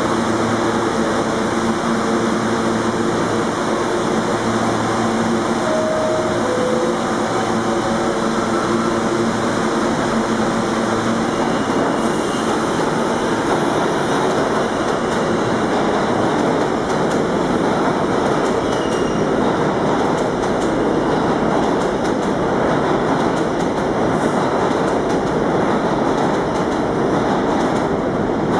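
New York City Subway R46 train departing a station. Steady humming tones for about the first twelve seconds, then giving way to an even wheel-and-rail rumble as the train pulls out.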